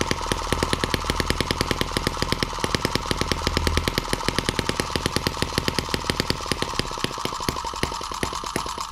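M17B miniature single-cylinder four-stroke model engine running steadily on its first start, a rapid even string of sharp firing pops. It is being run dry, before any cooling water has been put in its hopper.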